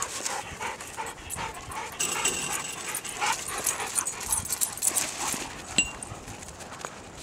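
Dogs panting during play, with a short high whine about six seconds in, among scattered scuffs and clicks.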